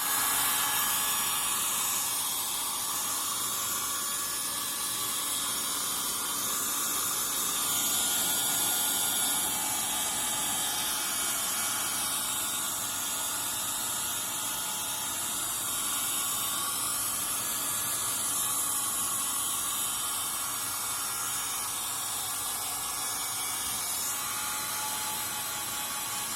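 Handheld hair dryer running steadily: a continuous blowing hiss with a faint motor whine.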